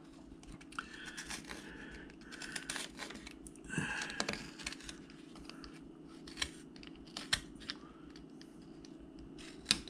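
Carving knife shaving wood along the grain: faint, irregular scrapes and small clicks as the blade cuts, over a steady low hum.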